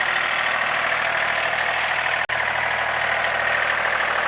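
Tractor engine running steadily, with a split-second break a little after two seconds in.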